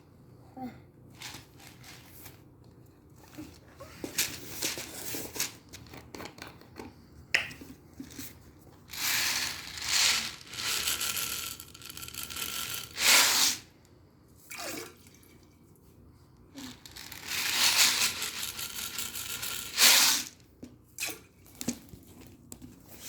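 Water running, in three short spells of one to three seconds, with scattered light knocks and clicks between them.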